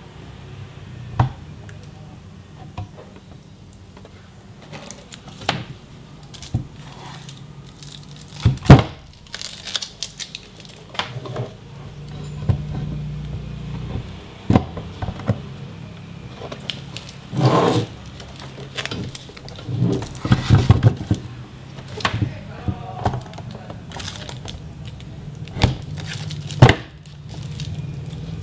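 Handling noises from a plastic-wrapped LED monitor: protective plastic film and bag crinkling and rustling, with scattered knocks and taps on the casing. The loudest are a sharp knock about nine seconds in and another near the end. A steady low hum runs underneath.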